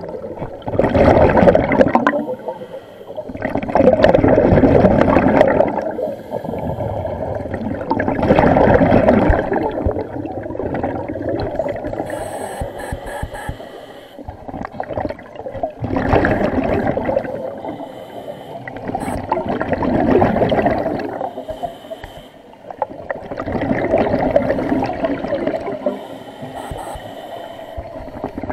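Scuba diver breathing underwater through a regulator: a rush of exhaled bubbles swells and fades about every four seconds, with quieter breathing between.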